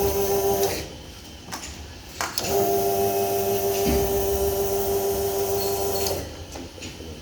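Electric hydraulic power pack of a motorcycle service lift running with a steady whine while its button is held, raising the lift. It stops within the first second, a couple of clicks follow, then it runs again for about four seconds and cuts off.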